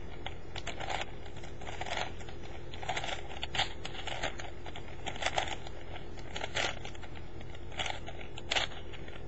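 Plastic 4x4x4 Rubik's Revenge cube being turned by hand: an irregular series of clicks and short scraping rasps as its layers are twisted one after another through an algorithm.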